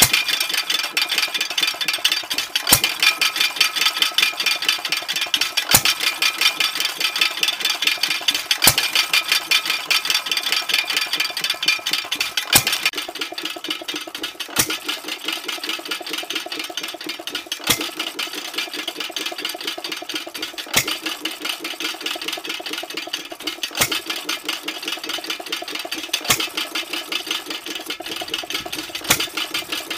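1916 Fairbanks Morse 1.5 hp headless hit-and-miss stationary engine running: a sharp bang about every three seconds as it fires, with a fast steady mechanical clatter as the flywheels carry it between firings.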